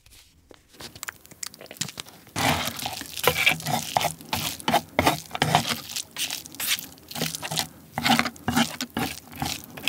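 Crispy seaweed chips (gim-bugak) crunching and crackling as they are stirred and broken into rice and crab innards with chopsticks and a wooden spoon, with some wet squishing. After a few faint clicks, a quick run of crisp crackles starts about two and a half seconds in.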